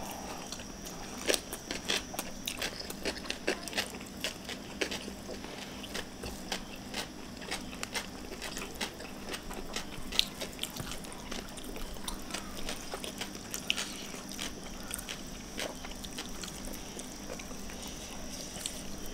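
Close-up eating sounds: chewing and crunching of crispy fried food and rice, with many short, sharp mouth clicks and smacks scattered throughout.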